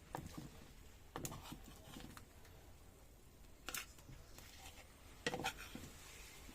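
A few faint, scattered clicks and knocks, four or five in all, spread over several seconds.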